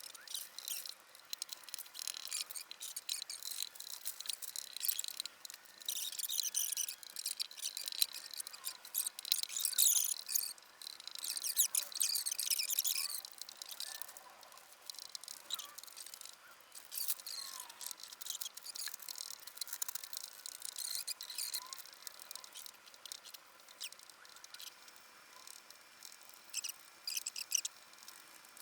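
Fine-grit sandpaper, about 600 grit, rubbed by hand along the edges of a pinball cabinet's freshly applied decals to take off the leftover residue. It gives irregular high scratchy strokes, heaviest in the first half and thinning out later.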